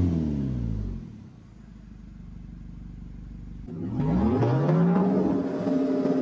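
Nissan Terra's aftermarket full exhaust with G-pipe resonator and Borla tip, its engine note falling back from a rev to a low, steady idle within the first second. About four seconds in, a rising rev comes back in at a louder level, leading into the closing music.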